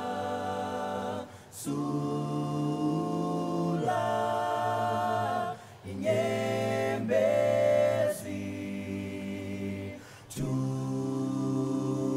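Background music: unaccompanied voices singing in harmony, long held chords in phrases broken by short pauses about every four seconds.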